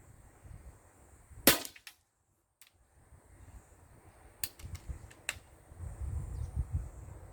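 A single shot from a Steyr LG110 air rifle, a sharp crack about one and a half seconds in, followed about three seconds later by a few lighter clicks. Wind rumbles on the microphone throughout.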